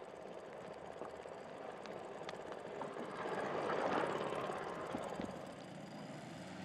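Ski jumper's skis running down the in-run track: a rushing hiss that swells to its loudest about four seconds in and then fades as he passes.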